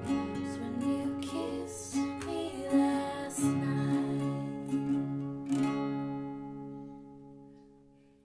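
Three acoustic guitars strumming the closing bars of a folk-rock song together. The last chord is struck about five and a half seconds in and rings out, fading away.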